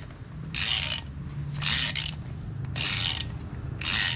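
Hand ratchet wrench clicking in four even strokes, about one a second, as nuts are run down on a wheel spacer.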